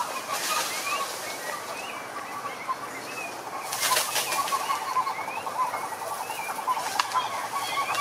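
A chorus of calling toads and frogs: a fast, even rattling trill that grows stronger about halfway through, with scattered short rising chirps above it. A brief rush of noise comes near the middle.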